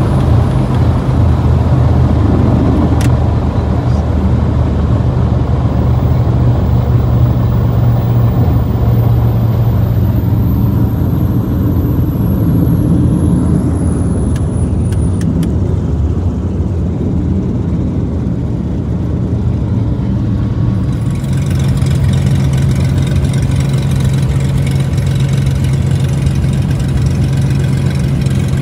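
Vintage MCI bus's diesel engine running steadily with a low drone. About two-thirds of the way through, a brighter hiss joins in.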